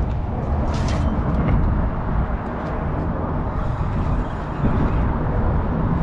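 Steady rumbling noise of road traffic on the bridge, with wind buffeting the microphone. A short hiss about a second in and a few faint clicks.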